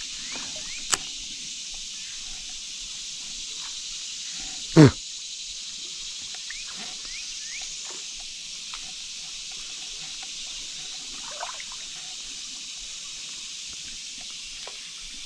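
Steady high hiss of flowing creek water, with a few faint short bird chirps. A single sharp thump about five seconds in stands out above it.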